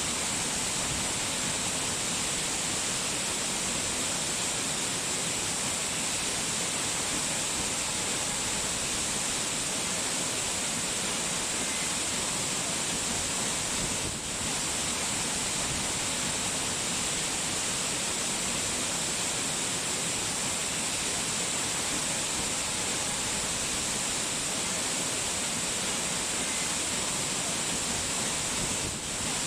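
Steady, even rush of falling water with no distinct drops or splashes standing out, with a brief dip in level about halfway through.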